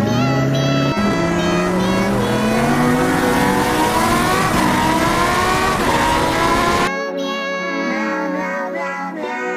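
Race car engine accelerating with a steady, slowly rising pitch. It cuts off suddenly about seven seconds in, and background music takes over.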